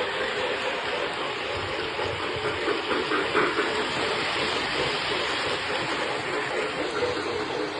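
K-Line O-gauge model of the SP Daylight 4449 locomotive running on its track: a steady rolling rumble of wheels on rail with an even motor hum.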